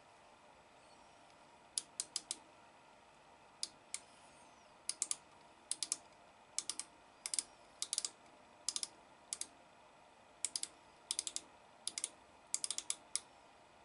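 Ratchet stop of a Dasqua outside micrometer clicking in short clusters of two to four as the thimble is turned, slipping once the spindle bears on the test bar at its set measuring force. About a dozen clusters of sharp clicks.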